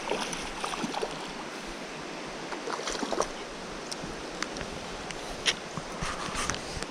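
Steady rush of flowing river water, with scattered small splashes and clicks.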